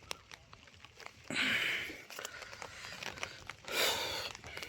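Light raindrops tapping on an umbrella held overhead, a scatter of small sharp ticks, with two short rustling bursts, about a second and a half in and again near the end.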